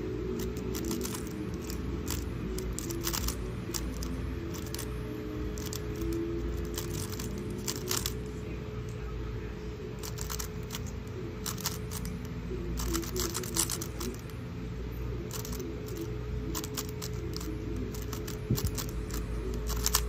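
A 3x3 speed cube being turned fast during a solve: quick irregular flurries of plastic clicks and clacks as the layers snap round, over faint background music.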